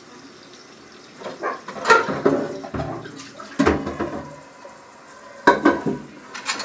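Kitchen tap running into a sink while dishes clatter against each other and the sink in three bursts, the clanks standing out loudly over the steady water.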